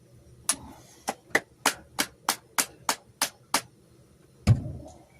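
A run of about ten sharp clicks, roughly three a second, as a camp stove's push-button igniter is worked, then a single heavier thump near the end.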